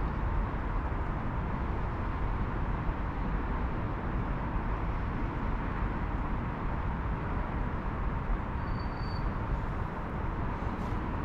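Steady outdoor background noise, heaviest in the low end, with a brief faint high tone about nine seconds in.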